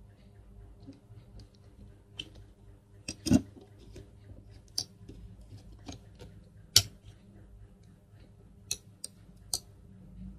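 Irregular sharp clicks and knocks of a hex screwdriver and the carbon-fibre top plate of a ZMR250 drone frame as the plate is screwed down onto its standoffs. About eight clicks, the two loudest clacks about three and seven seconds in.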